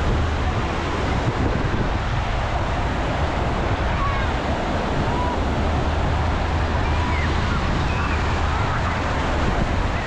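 Surf washing on a beach, steady throughout, with wind buffeting the microphone in a low rumble. Faint distant voices come through in the second half.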